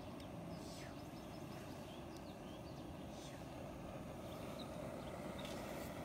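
Isobutane backpacking stove burning with a steady low roar, with faint, brief bird chirps now and then.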